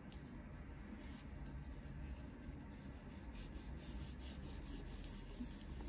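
Faint rubbing and wiping on a silicone stamping mat as its nail guides are cleaned, over a low steady hum.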